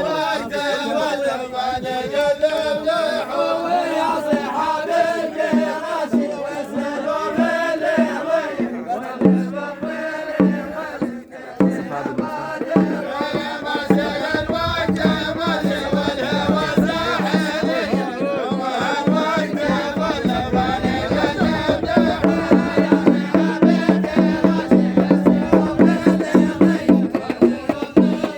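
Middle Eastern folk song: voices chanting a melody over hand drums. After about twelve seconds the singing gives way to the drumming and a steady low instrumental tone, and the beat grows quicker and stronger toward the end.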